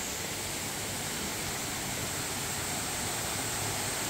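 Steady rushing of a small stream running over rocks, growing slightly louder toward the end.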